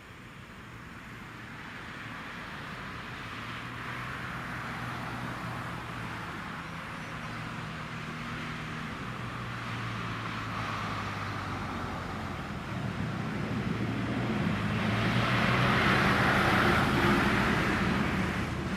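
Jet engines of a Boeing 777-300 airliner passing, the sound building steadily over several seconds, loudest about three-quarters of the way through and then easing off.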